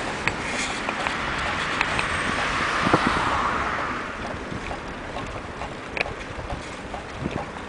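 Wind rushing over the microphone of a camera carried on a moving bicycle, swelling for a couple of seconds about halfway and then easing off, with small scattered ticks.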